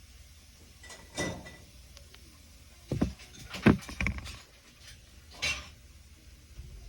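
iPhone 6s Plus vibrating for an incoming call in a haptic pattern: about five short buzzing rattles at uneven intervals, one about a second in, a quick cluster of three between three and four seconds in, and a last one about five and a half seconds in.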